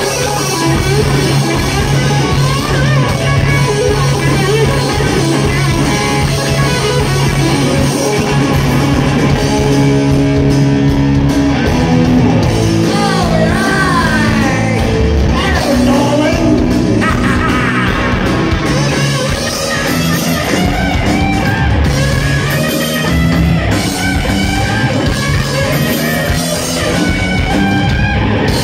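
Live heavy metal band playing loud and without a break: distorted electric guitar, bass and drums, with a singer.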